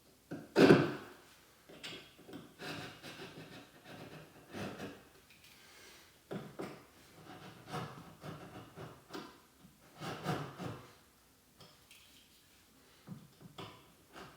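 Irregular knocks, taps and scraping of wood being handled and worked, with a heavier thump about a second in.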